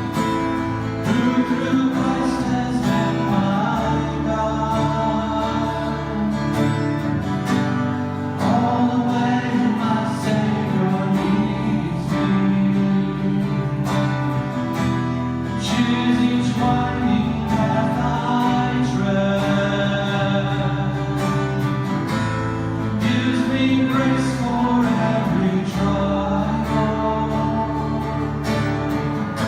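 A church worship team playing and singing a closing worship song, voices over guitar accompaniment.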